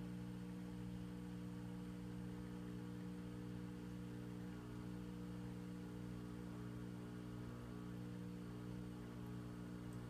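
Samsung dishwasher filling with water at the start of its cycle: a steady, even hum. It stands outside its cabinet, without its sound insulation around it.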